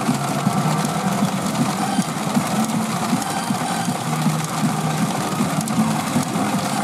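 Steady pachinko din from a P Abunai Deka machine on its results screen: a fast, unbroken mechanical rattle of steel balls, with the machine's electronic tones held under it.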